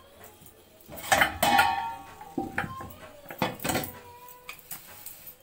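Aluminium pot lid and a metal slotted spoon clattering as the lid is set over a cloth-wrapped pot and the spoon laid on top, a few sharp metallic knocks with brief ringing, the loudest about a second in. The pot is being sealed to steam the pulao on dum.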